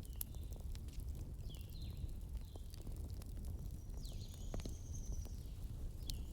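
Wood fire burning in a fireplace: scattered sharp crackles and pops over a steady low rumble, with a few faint high whistles.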